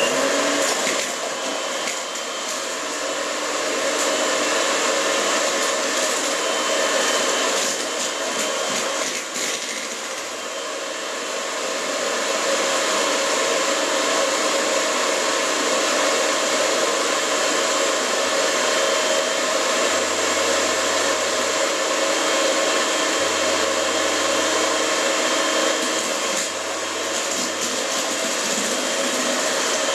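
Electric mixer running steadily, beating oil, sugar and eggs until fluffy and well combined. It starts up suddenly right at the beginning and its note dips a little partway through.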